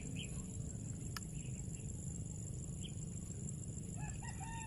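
Steady high-pitched drone of crickets over a low rumble, with scattered short chirps. Near the end, a chicken starts calling in short pitched calls.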